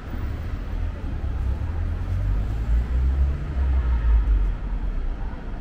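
City street ambience dominated by the low rumble of passing road traffic, which swells between about two and a half and four and a half seconds in, then eases.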